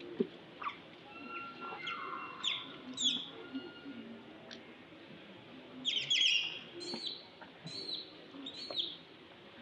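A series of short high-pitched chirping calls from a small animal, some sweeping down in pitch and others rising and falling, in a cluster about two to three seconds in and again from about six seconds, ending in three arched calls.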